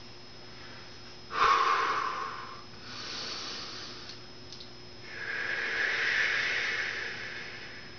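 A man breathing heavily through nose and mouth, winded from sets of push-ups: a sharp, loud exhale about a second in, a softer breath around three seconds, then a longer drawn-out breath.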